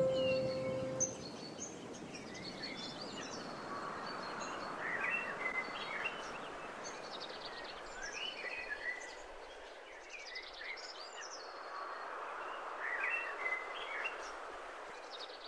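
A chorus of songbirds chirping and trilling over a soft, steady hiss of outdoor ambience. The last note of the preceding music dies away in the first second, and the birdsong slowly fades near the end.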